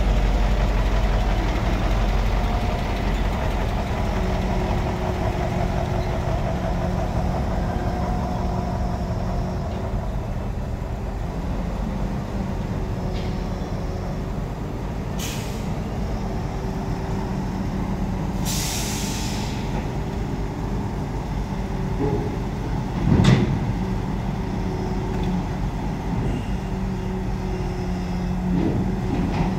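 Heavy diesel engines of a truck and a mobile crane running steadily, with two short hisses of air about halfway through and a single heavy thump a few seconds later.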